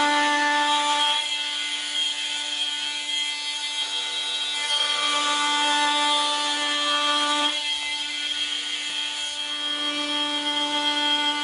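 Bosch GOP 250 CE oscillating multitool running, its blade cutting or sanding, with a steady buzzing note. The note changes as the load shifts, about a second in and again around seven and a half seconds in.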